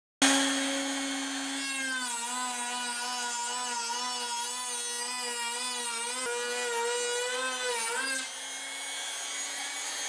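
Compact trim router running along the edge of a wooden 2x4 post: a high motor whine that starts abruptly, wavers lower while the bit is cutting, then steadies and gets quieter about eight seconds in as the bit comes free of the wood.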